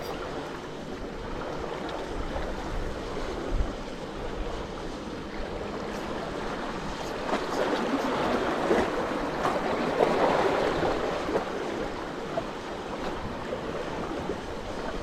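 Sea water washing and surging, with wind noise on the microphone; a wave swells louder about halfway through, then eases off.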